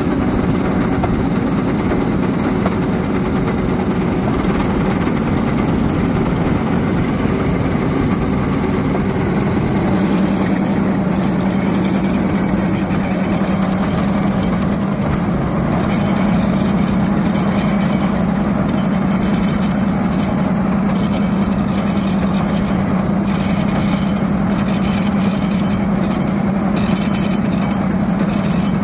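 Small-engine rail cart running steadily along old track, its motor droning with a clattering rattle from the cart riding the rails.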